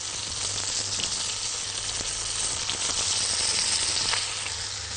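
A whole chicken sizzling in hot fat in a deep pot after browning, a steady frying hiss with a few faint clicks.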